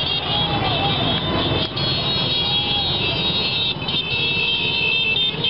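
Many small motorcycles and scooters riding past in a convoy, their engines running together as a dense, steady traffic noise. High-pitched tones sound over it again and again, starting and stopping.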